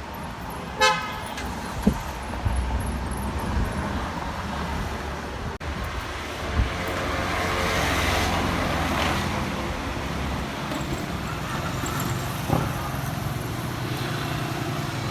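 Street traffic with motor vehicles running past. A vehicle horn gives a short toot about a second in.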